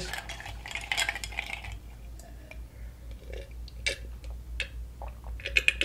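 Ice cubes clinking in a stemmed wine glass while a drink is sipped from it, heard as soft sipping noise and a scatter of small clicks, busiest near the end.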